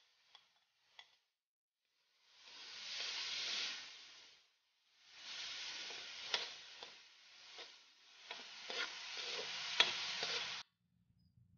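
Tomato slices sizzling as they hit hot oil and pork in a wok, stirred with a spatula, with a few sharp clicks of the spatula against the pan. The frying comes in two spells, a short one and then a longer one, and cuts off abruptly near the end.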